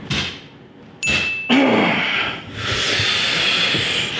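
A sharp smack of a hand strike on bare skin about a second in, followed at once by a man's short grunt. Then a steady hissing noise sets in from about halfway.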